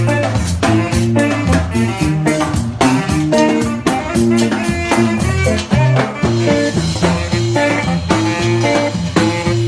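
Upbeat instrumental music with a steady, bouncy beat and a walking bass line.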